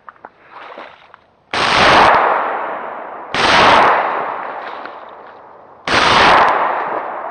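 Three shotgun shots, about two seconds apart, each followed by a long rolling echo that fades away.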